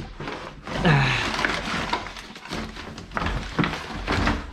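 Handling of a cable's packaging while unboxing: scattered clicks, knocks and rustling. About a second in, a short vocal sound falling in pitch.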